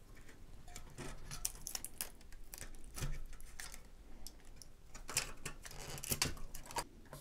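Light clicks and taps of small plastic pieces and a circuit board being handled on a workbench, with a few louder knocks about three, five and six seconds in.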